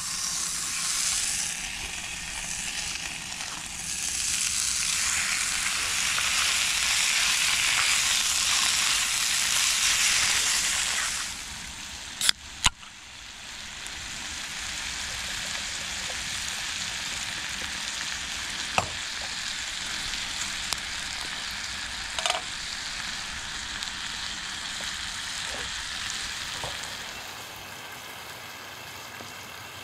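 Food sizzling as it fries in a pan, loud for about the first eleven seconds. Two sharp clicks follow a little after twelve seconds, then a softer sizzle with a few light taps, fading near the end.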